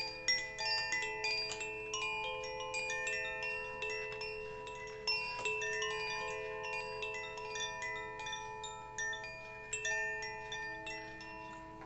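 Hand-held bamboo-tube chime rung by its string: many clear, overlapping tones struck in quick, irregular succession and left ringing. The strikes thin out and the ringing fades near the end.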